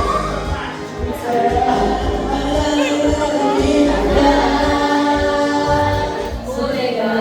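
Music with several voices singing together, holding long notes over a steady low accompaniment.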